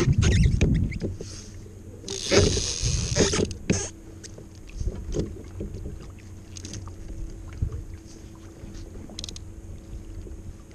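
Kayak on open water: wind rumble on the microphone and water against the hull, with a brief louder rush about two seconds in and scattered small clicks.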